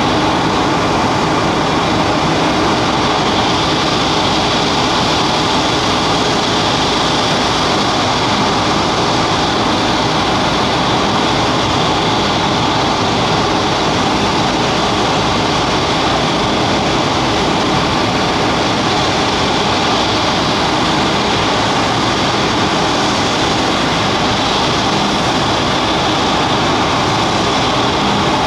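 Diamond DA-42 Twin Star's two propeller engines running steadily: a constant drone, even in level throughout, with a few held tones over a broad rushing noise.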